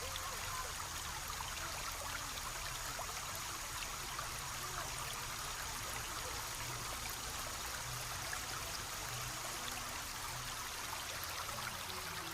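Small stream trickling and babbling steadily, a continuous wash of running water.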